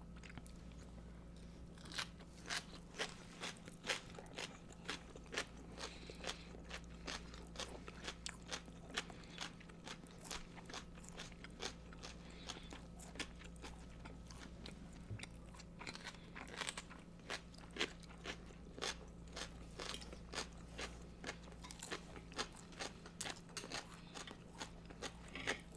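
Close-miked eating sounds: chewing and biting food, with many short crunches scattered irregularly throughout. A faint steady low hum lies underneath.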